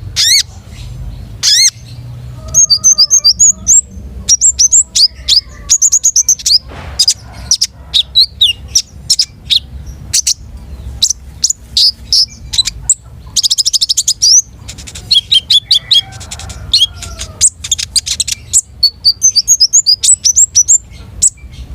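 Konin songbird singing a loud, fast, continuous run of high chirps and short whistles, some sweeping up or down in pitch, with a quick buzzy trill a little past halfway.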